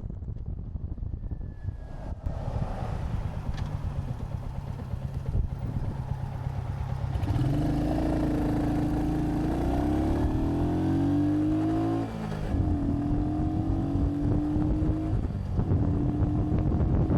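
Royal Enfield Hunter 350's single-cylinder engine running under heavy wind noise on the microphone. From about halfway through, its note climbs steadily, drops away sharply for a moment, then picks up and climbs again.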